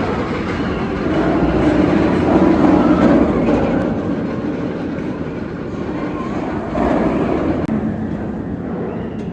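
Montu, a B&M inverted steel roller coaster, with its train running along the track: a loud rumble that swells to its loudest about two to three seconds in, then swells again briefly near seven seconds.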